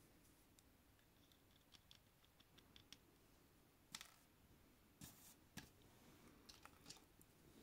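Faint clicks and light scraping of a small plastic Transformers figure being handled in the fingers, with a few sharper clicks from about four seconds in.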